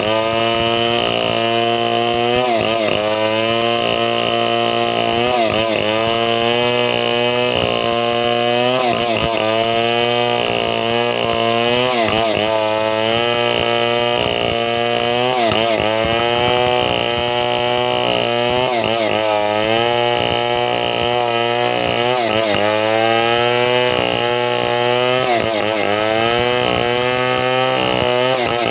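Two-stroke chainsaw running at high speed without a break. Its pitch dips briefly and recovers about every three seconds, as it does when the saw loads up in a cut.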